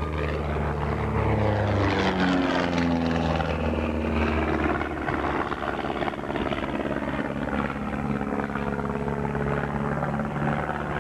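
Propeller-driven aerobatic airplanes flying by with their piston engines running loud; the engine pitch falls over the first few seconds as they pass, then holds steady.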